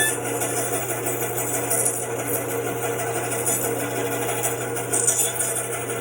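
Bandsaw running with a steady motor hum and blade noise, cutting a cherry log into spoon blanks.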